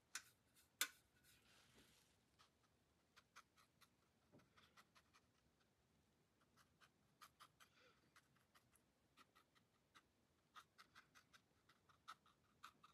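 Faint, irregular taps and scratches of a round paintbrush dabbing paint onto watercolour paper, with two sharper clicks in the first second.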